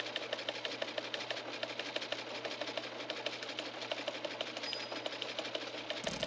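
Rapid, steady mechanical clicking, about eight clicks a second, over a low steady hum; a brief hiss sets in just before the end.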